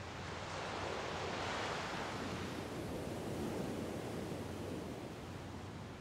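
A wave breaking and washing up the shore, swelling about a second in and fading toward the end, over a faint steady low hum.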